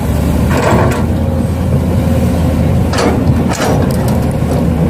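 Steady low engine-like hum from RC construction models working, with several short scraping clatters about half a second in and around three to four seconds in.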